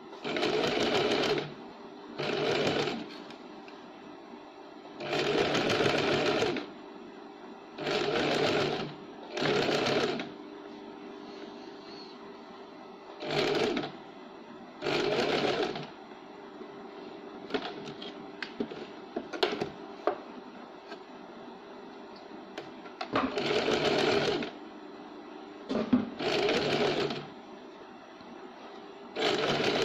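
Small electric sewing machine stitching lace trim onto fabric in about ten short runs of a second or so each, stopping between runs while the work is repositioned. There are a few light clicks during a longer pause midway.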